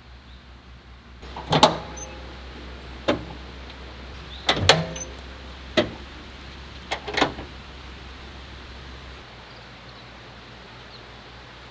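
Sharp knocks and clanks, about six of them spread over several seconds, over a steady low hum.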